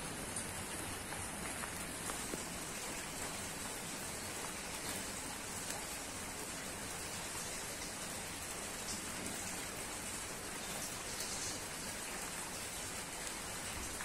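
Steady rain falling on broad papaya leaves and the surrounding foliage.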